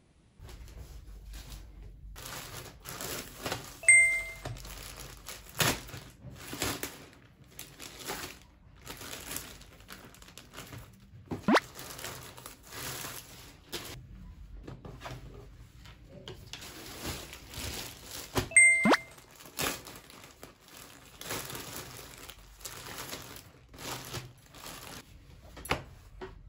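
Synthetic activewear fabric rustling and brushing as garments are handled and smoothed flat. Over it, the same short bright chime sound effect plays twice, about four seconds in and again near nineteen seconds. A quick rising whistle comes a little before the middle and again with the second chime.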